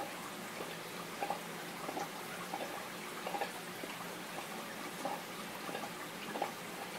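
Aquarium water circulating: a steady wash of running water with faint, irregular drips or plinks, about one or two a second.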